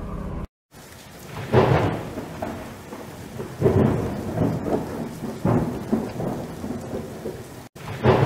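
Thunderstorm sound effect: steady rain with rolling thunder that swells up several times.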